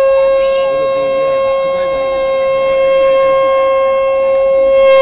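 Conch shell (shankha) blown in one long, loud, steady note, held about five seconds and cutting off sharply near the end.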